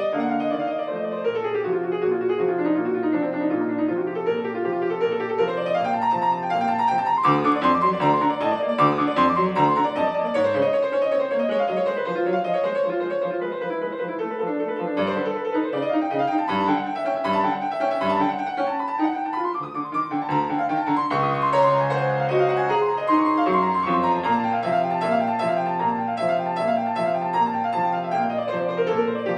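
Solo C. Bechstein grand piano playing a fast, unbroken stream of notes.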